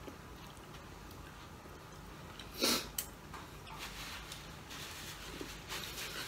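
Close-up eating noises: a short, loud mouth sound over a beef bulalo bone a little over two and a half seconds in, with a click just after, then soft rustling of a paper napkin as the hands are wiped.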